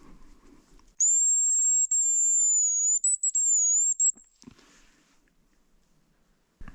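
Hazel grouse decoy whistle blown to call a hazel grouse: one long, very high, thin whistle of about three seconds, wavering slightly and broken by short gaps near its end.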